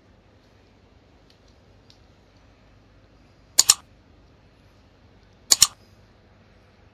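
Mouse-click sound effects of a like-and-subscribe button animation: two sharp double clicks, one about three and a half seconds in and another about two seconds later, over a faint steady background hiss.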